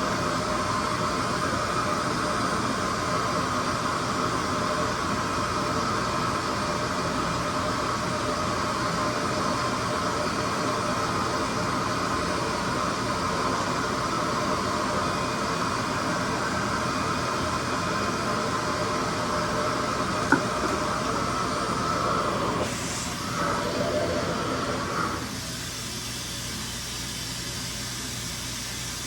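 RevAir reverse-air hair dryer running, a steady whooshing rush of suction with a pitched hum, and a single sharp click about 20 seconds in. A couple of seconds later the sound wavers, then drops to a quieter steady hiss near the end.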